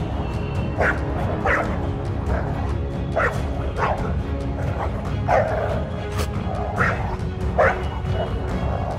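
Small dog barking repeatedly, short sharp yapping barks coming about every second: defensive alarm barking at a coyote.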